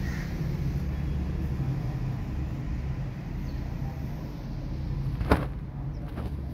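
Steady low, engine-like rumble, with one sharp click about five seconds in and a fainter one just after.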